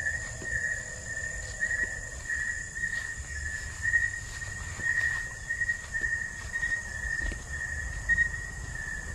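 Night insects calling: a steady high hiss-like buzz with a lower tone that pulses about twice a second, over a low rumble of walking with the camera.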